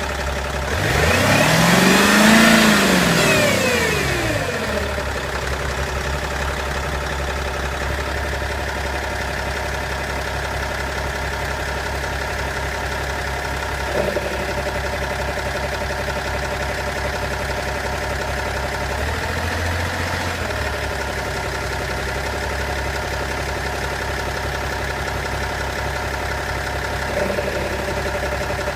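BMW 530d E60 inline-six diesel engine blipped once, rising and falling back in the first few seconds, then idling steadily, with small brief changes in its note about halfway through and near the end. The owner takes the weird sound for one coming from the gearbox.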